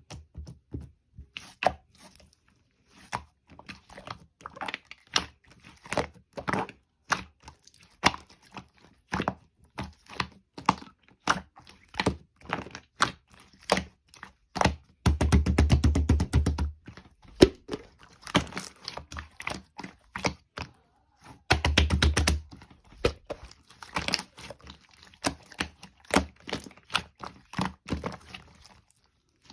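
Close handling noises: a long string of small taps, clicks and knocks, broken by two bursts of rapid rattling clicks, one about halfway through lasting a second and a half and a shorter one about a quarter of the way from the end.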